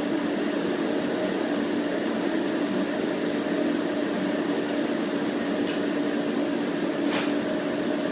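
The HT-25 running with a steady motor hum and whir, holding one constant low tone over an even rush of air noise. There is a brief tick about seven seconds in, and the sound cuts off abruptly at the very end.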